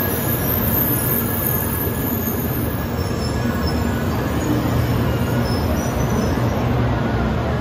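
Type 923 "Doctor Yellow" Shinkansen inspection train moving along the station platform: a steady rumble of wheels and running gear on the rails, with a faint high wheel squeal over it.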